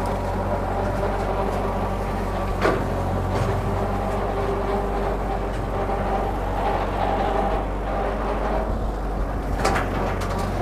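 1948 Ford 8N tractor's four-cylinder flathead engine running steadily as it drives a Woods M5 rotary brush cutter through overgrown brush. Two sharp cracks stand out, one about a third of the way in and one near the end.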